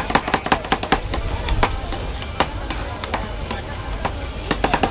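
Two metal spatulas chopping and scraping on a steel cold plate of a rolled ice cream stand: a quick run of sharp metallic clacks at the start, a few scattered strikes in the middle, and another fast run near the end.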